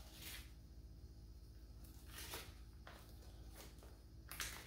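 Black disposable gloves being peeled off the hands: a few faint, brief rustles and snaps of thin rubber, the strongest near the end, over a low steady hum.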